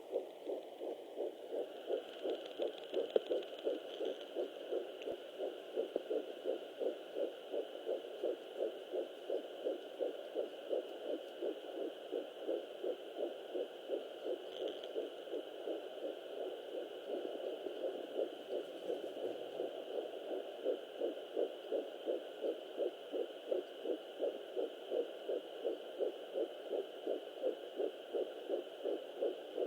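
Fetal heartbeat at 11 weeks 4 days through a Sonoline B handheld fetal Doppler's speaker: fast, even, whooshing beats, over a faint steady electronic whine.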